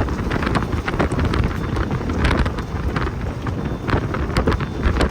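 Tornado wind gusting hard across the microphone, a loud, steady low rumble broken by frequent sharp gusts.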